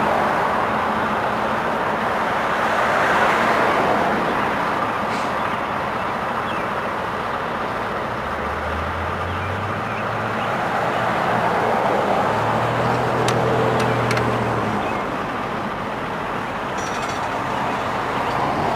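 Road traffic going by: a steady hiss of tyres and engine hum that swells and fades as vehicles pass.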